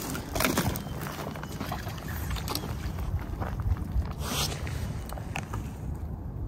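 Steady low rumble with scattered rustling, scraping and light knocks from an angler moving and handling his fishing gear on a snowy riverbank.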